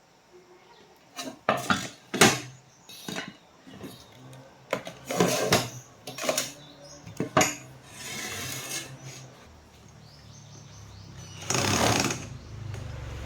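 Tools and metal parts clattering and knocking as they are handled on a workbench, in a string of sharp separate knocks, a louder scrape or rustle near the end, then a low steady hum that starts shortly before the end.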